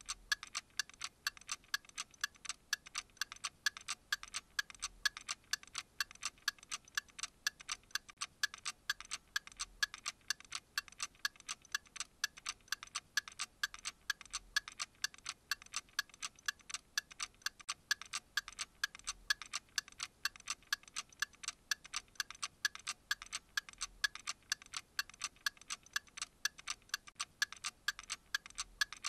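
Steady, even ticking, about four ticks a second, in the manner of a clock.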